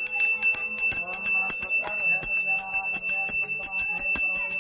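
Small brass pooja hand bell rung continuously, its clapper striking several times a second with a steady, bright ring.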